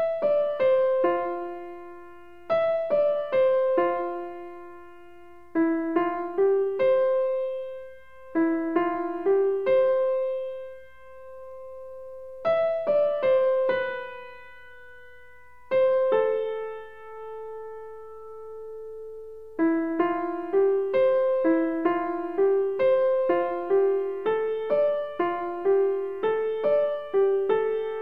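Background music: a solo piano melody of struck notes that ring and die away, the notes coming quicker over the last third.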